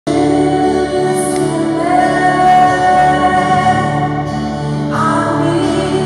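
Live worship song: a woman sings into a microphone over a keyboard and a small acoustic guitar, with long held notes.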